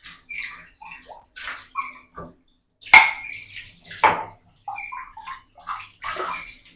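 Ceramic mugs and dishes clinking and knocking against each other and the counter, in irregular short clinks, with a sharp loud clink about three seconds in and another about a second later.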